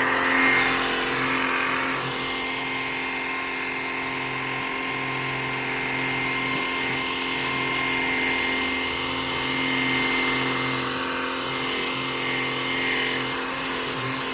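Battery-powered pressure washer running steadily: its motor and pump hum under a continuous hiss of water spray from a 40-degree nozzle.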